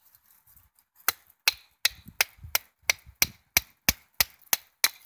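A wooden baton strikes the spine of a Morakniv Companion Heavy Duty knife, driving the blade down through a split of firewood. About a dozen sharp wooden knocks come in a steady rhythm of roughly three a second, starting about a second in.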